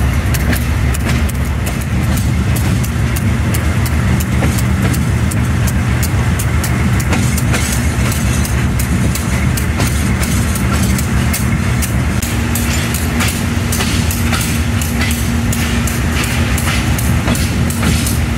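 Diesel locomotive running as the train moves slowly, its engine loud and steady, with frequent short clicks and knocks. A steady higher tone joins the engine sound about twelve seconds in.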